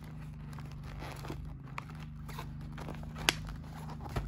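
Glossy photo-paper chip bag being handled and turned over, crinkling and rustling, with a sharp click about three seconds in.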